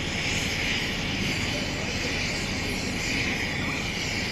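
Propane tank leaking, its gas escaping in a steady high hiss as it sprays out in a white plume.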